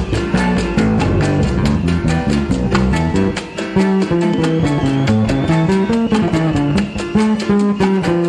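Salsa music played by a band: a fast, steady percussion beat over a moving bass line and plucked-string or keyboard figures.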